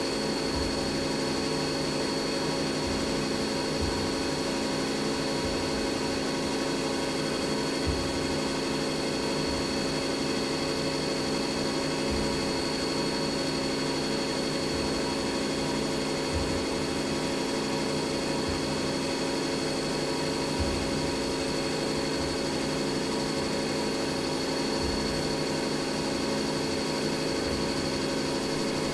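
CNC milling machine cutting an aluminum coaster with an end mill, running steadily with a constant high whine over a hum of steady tones.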